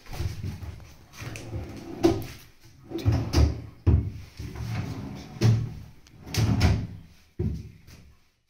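Wooden bathroom vanity cabinet being opened and handled: its door and panels knock and click about eight times at irregular intervals, with dull low thuds.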